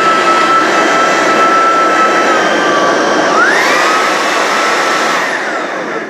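Cecotec Conga Rockstar 10000 Nebula cordless stick vacuum running, a steady motor whine over the rush of air. About three and a half seconds in the motor speeds up with a rising whine, then winds down and stops near the end.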